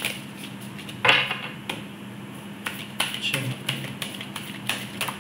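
Tarot cards being handled and laid down: a run of light, irregular clicks and taps, the sharpest about a second in.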